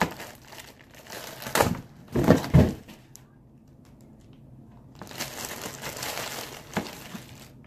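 Packaging crinkling and crackling as an airsoft pistol is unwrapped: a few loud crackling bursts in the first three seconds, then a softer steady rustle with a sharp click near the end.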